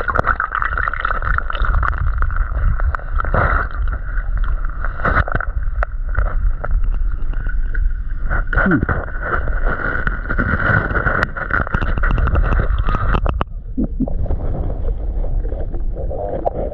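Muffled underwater sound of a gloved hand digging through creek gravel and sediment, with repeated clicks and knocks of stones. A steady high whine runs through most of it and cuts off suddenly about thirteen seconds in.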